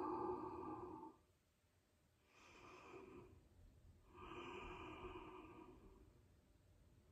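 A woman taking slow, deep, audible breaths: a sighing out-breath with a little voice in it fades out about a second in, then after a pause come a short breath and a longer, soft one.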